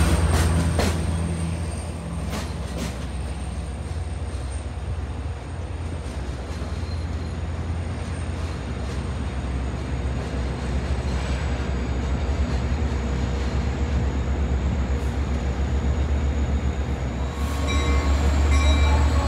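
Long Island Rail Road train running past on the tracks, a steady low rumble with a few sharp clicks early on. Near the end it grows louder and a high whine of several steady tones comes in.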